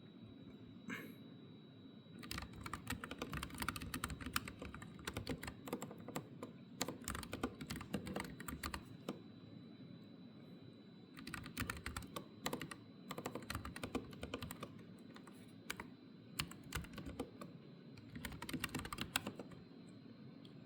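Typing on a Keychron K15 low-profile mechanical keyboard: fast runs of key clicks in four spells of one to seven seconds, with short pauses between them.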